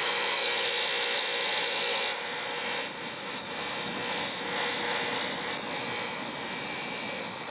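CB radio static hissing steadily from the speaker on an open channel with no one transmitting. The top end of the hiss drops away about two seconds in.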